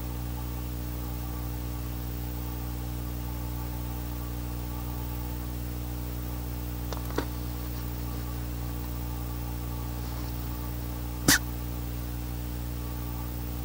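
A female Ural owl sneezes once, a single loud, very short, sharp burst about eleven seconds in. A fainter short sound comes about seven seconds in. Both sit over a steady low electrical hum and hiss.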